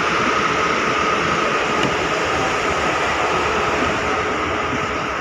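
Steady drone of idling buses with their air conditioning running, with a faint steady whine through it.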